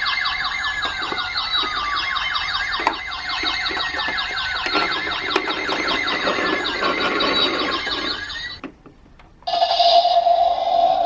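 Toy police car sirens: an electronic siren with a fast pulsing warble and falling glides, under a low rumble from about the middle. It cuts out briefly near the end, and a different siren then starts on a steady held tone.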